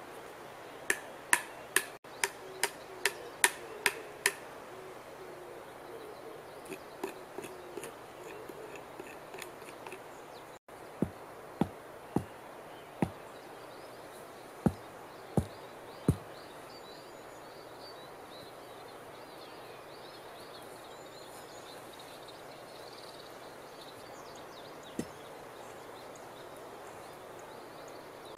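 About nine sharp knocks of a blade chopping into a wooden stick, then a short series of dull thuds as a wooden stake is pounded into the ground, followed by faint woodland ambience with light bird calls.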